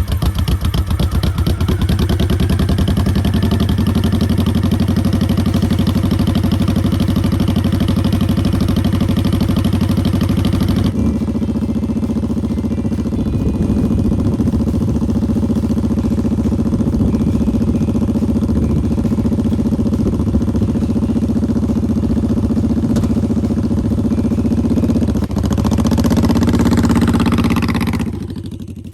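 Motorcycle engine running with an even, rhythmic beat. Near the end it grows louder, then fades out with a falling pitch.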